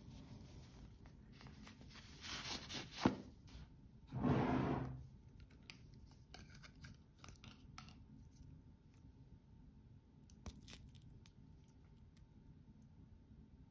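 Handling noise of a gold mesh-bracelet wristwatch being slid off its padded cushion. There is a rustling scrape ending in a sharp click about three seconds in, then a louder, longer rustling scrape a second later. After that come scattered light clicks and rustles of the metal mesh bracelet and its paper tag.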